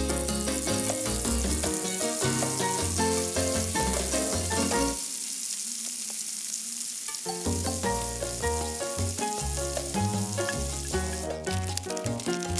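Whole turmeric-coated fish deep-frying in a wok of hot oil, a steady sizzle. Background music plays over it and stops for about two seconds midway, leaving the sizzle alone.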